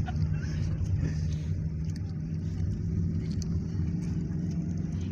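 Vehicle engine and road noise heard from inside the cabin while driving: a steady low drone with an even hum, and a few faint light clicks.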